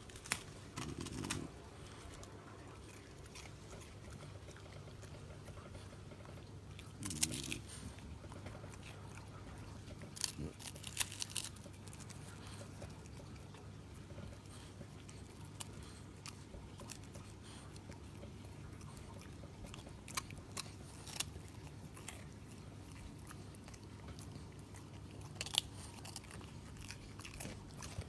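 French bulldog biting and chewing prawn crackers: scattered crisp crunches that come in short clusters, about a second in, around seven seconds, around ten to eleven seconds, twice around twenty seconds and again near the end, with quiet stretches between.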